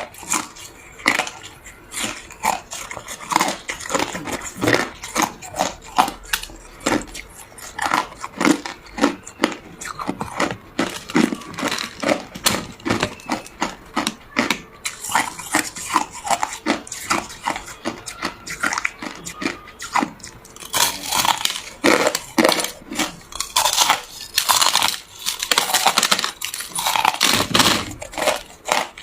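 Ice being bitten and chewed close to the microphone: a quick run of sharp crunches and cracks, several a second, growing denser and grittier in the second half.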